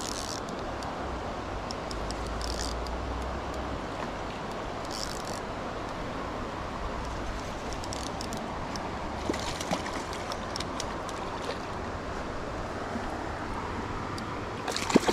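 Steady rush of a small, shallow river. Over it come short, intermittent runs of ticking from a spinning reel being cranked as a hooked trout is played.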